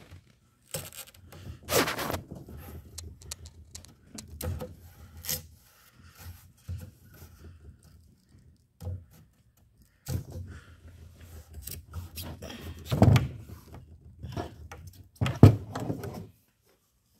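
Handling noise from a Polk Audio PSW10 subwoofer as its grille is pried off the cabinet: irregular knocks, scrapes and thunks with rustling between, the loudest thumps about two seconds in, about two-thirds through and near the end.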